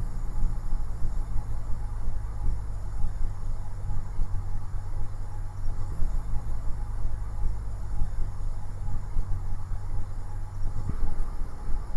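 Cessna 172's piston engine and propeller running steadily at low throttle on landing approach: a steady low drone.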